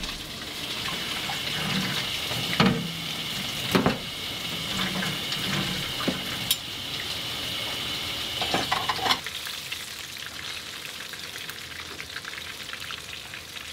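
Kitchen tap running into a steel sink while vegetables are rinsed in a plastic colander, with a few sharp knocks. About nine seconds in, the water gives way to a steady sizzle of salmon frying in a pan.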